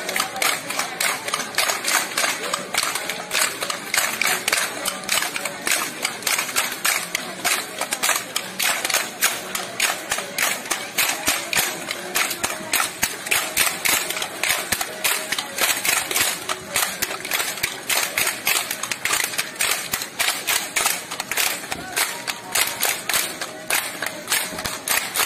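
A dense run of sharp clacks, several a second in an uneven rhythm, with the voices of a crowd underneath.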